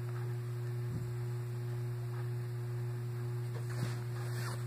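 A steady low hum with a faint held tone above it, and a couple of faint soft taps.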